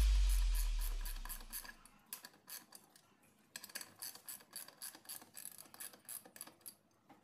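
Background music dying away, then a run of faint sharp clicks, about four a second, as a screwdriver turns the centre screw of a Royal Enfield motorcycle's round side cover.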